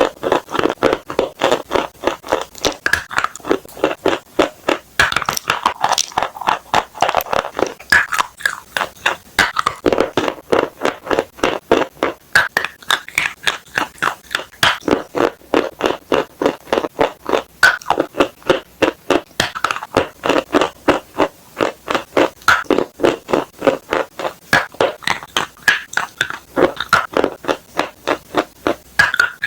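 Close-up crunching of soft chalk being bitten and chewed: a steady run of crisp crunches, about four a second.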